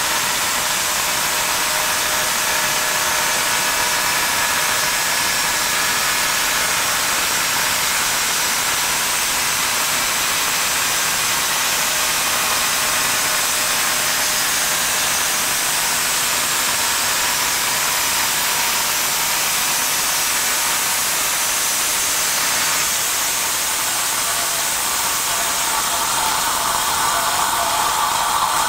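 Engine-driven band sawmill running steadily with its band blade cutting through a log, water dripping onto the blade to keep it cool and quieter. The sound shifts slightly near the end of the cut.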